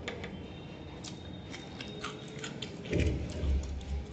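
Close-miked chewing of a mouthful of curry and rice, with many small wet mouth clicks and smacks. About three seconds in comes a louder, dull, low thudding stretch.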